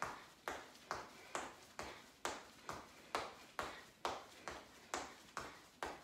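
Trainers landing on a tiled floor while jogging in place with heels kicked up toward the buttocks: a steady run of short footfalls, a little over two a second.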